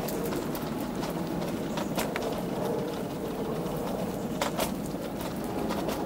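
Steady outdoor background noise, like distant traffic or wind, with a few sharp clicks about two seconds in and twice more near the end.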